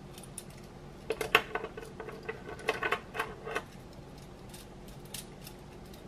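Hard plastic LEGO Technic pieces clicking and clattering together as they are handled, a quick run of clicks from about one to three and a half seconds in, then a couple of single clicks near the end.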